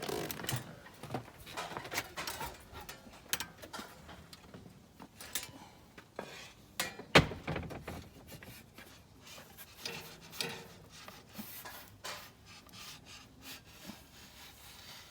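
Kitchen handling noises: scattered light knocks, rubbing and scraping on wood, with one sharper knock about seven seconds in.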